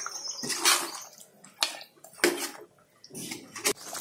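A steel spoon stirring thin chicken curry in a pot: wet sloshing swishes with several sharp clinks and scrapes of the spoon against the pot.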